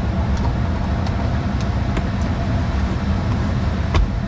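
Road and tyre noise inside the cabin of a moving Tesla Model 3 Performance, an electric car: a steady low rumble with a faint steady hum above it. A single sharp click near the end.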